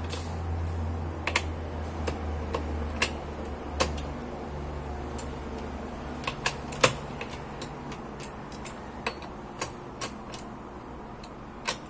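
Irregular light metallic clicks, about a dozen, from the steel gears and shafts of a small motorcycle gearbox being turned by hand in an open crankcase. A low hum sits under the first few seconds and fades out.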